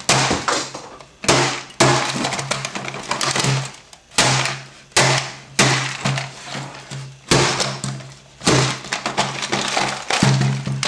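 Plastic housing of a Suntone cassette recorder being cracked and snapped apart by hand: a series of sharp plastic cracks and snaps, about one a second.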